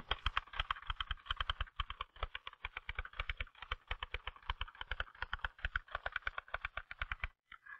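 Typewriter keys struck in a rapid, even run of clacks that stops shortly before the end.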